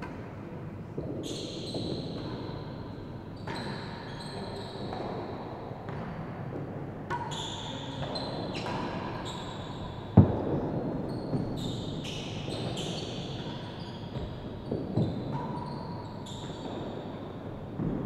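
A real tennis rally: repeated strikes of the ball on the rackets and off the walls and floor of the enclosed court, mixed with short high squeaks. The hardest strike comes about ten seconds in.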